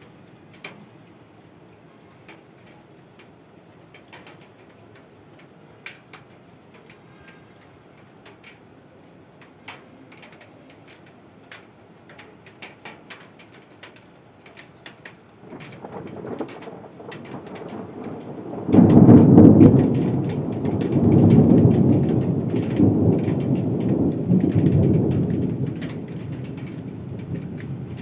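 Steady rain, with scattered drops ticking sharply on a hard surface. About halfway through, thunder begins to rumble, breaks loudly a few seconds later, and rolls on for several seconds before fading.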